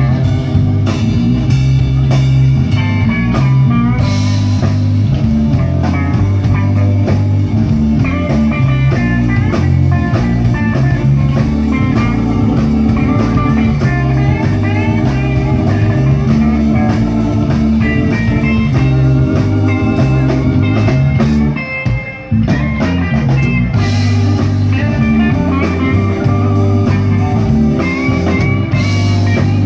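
Live electric blues band playing an instrumental passage: a lead electric guitar solos with bent notes over bass and drums. About two-thirds of the way through the band breaks off for an instant before coming back in.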